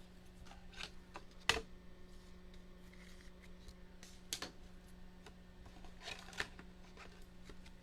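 Trading cards being handled and flipped through the hands, with scattered sharp clicks and rustles, the sharpest about a second and a half in. A faint steady hum runs underneath.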